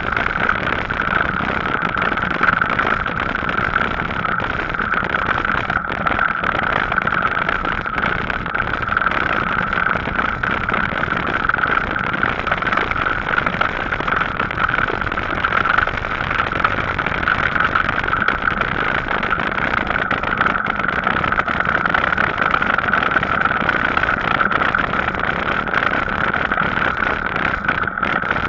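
Continuous riding noise from an e-bike on a tarmac cycle path: tyre and wind rumble with a steady whine running through it.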